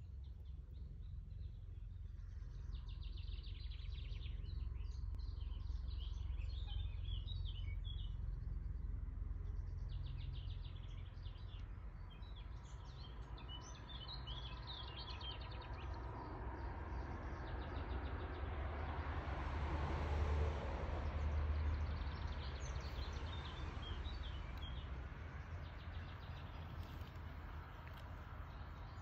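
Outdoor ambience: small birds chirping in short scattered bursts over a steady low rumble. Past the middle, a broad rushing noise swells up and fades away again.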